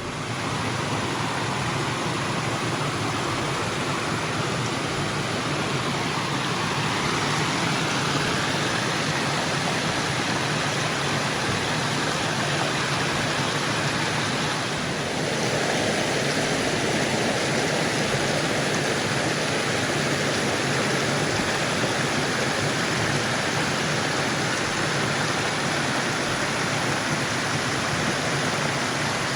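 Creek water rushing steadily, a continuous noise of running and falling water whose tone shifts slightly about halfway through.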